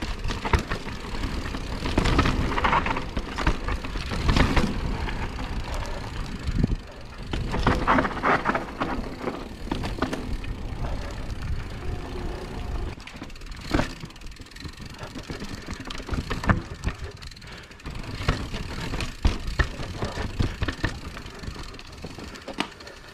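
Mountain bike riding over rough trail: tyre noise on dirt and rock with frequent rattles and knocks from the bike, in uneven surges.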